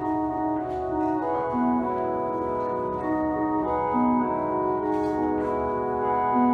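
Experimental electronic music: held organ-like keyboard tones stepping from note to note over a steady low drone.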